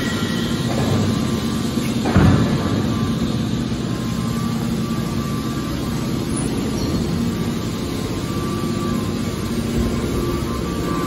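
Hydraulic scrap metal baler running: a steady mechanical hum with a held whine from its hydraulic drive, broken by a single heavy clank about two seconds in.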